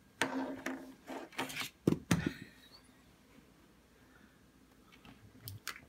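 TV remote clattering on a desktop as a cat knocks it off: a quick run of knocks and scrapes, ending about two seconds in with the loudest, deepest thuds as it lands. A couple of faint clicks follow near the end.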